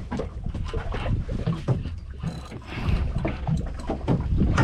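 Water slapping and splashing against the hull of a drifting fibreglass fishing boat, with a steady low rumble, wind on the microphone and many short knocks.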